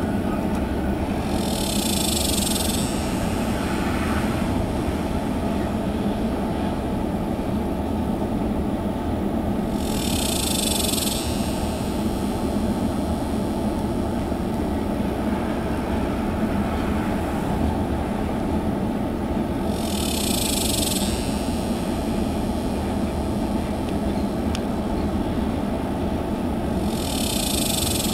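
Manifest freight train of tank cars, covered hoppers and boxcars rolling past with a steady rumble of wheels on rail. A high hiss about a second long comes and goes four times, roughly every eight to ten seconds.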